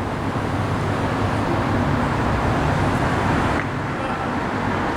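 Steady road traffic noise, a low rumble of passing vehicles.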